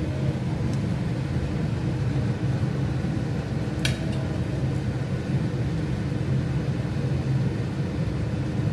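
Steady low mechanical hum, like a fan or small motor running, with a single sharp click about four seconds in.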